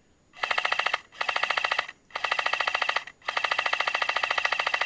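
Airsoft PKM electric support gun firing four rapid bursts, each a fast, even rattle of shots. The last burst is the longest, at about two seconds.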